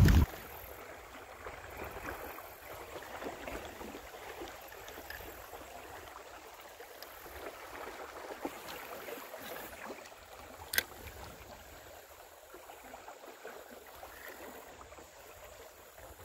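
Creek current running past a drifting kayak, a steady rushing of water. Wind buffets the microphone right at the start and cuts off a moment later, and a single sharp click sounds about two-thirds of the way through.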